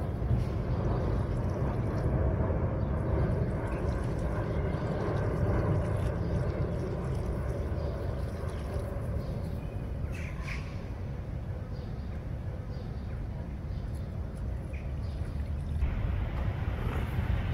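Outdoor street ambience: a steady low rumble, with a couple of brief higher-pitched sounds about ten seconds in.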